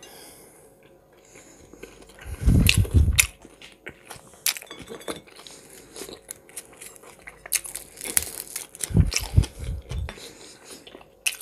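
Close-miked eating of hot-smoked fish and bread: chewing and biting with scattered crisp clicks. The loudest moments are two short low, thudding stretches, about two and a half seconds in and again about nine seconds in.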